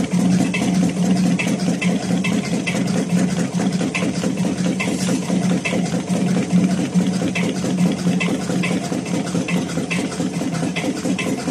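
Expanded-metal mesh machine running: a steady motor hum with a light, regular click about twice a second, one for each stroke of the toothed die slitting and stretching the sheet.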